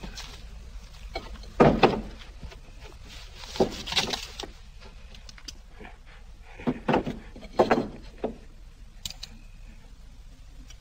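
A handful of separate dull knocks and scuffs, like wood being bumped or handled, with quiet between them; the loudest pair comes about two seconds in.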